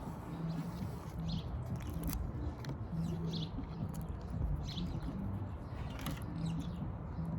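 A bird chirping outdoors, short high chirps repeated about once a second, over a steady low background hum, with a couple of brief clicks.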